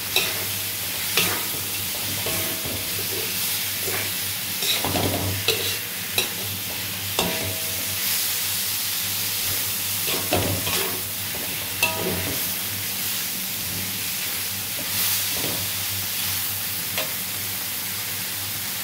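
Beef liver, carrot strips and ground spices sizzling in a hot metal wok, with a metal spatula scraping and knocking against the pan now and then as the food is stirred.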